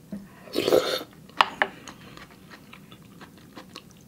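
A person eating spicy soft-tofu noodle soup close to the microphone: a brief slurp about half a second in, then chewing with a few sharp wet mouth clicks.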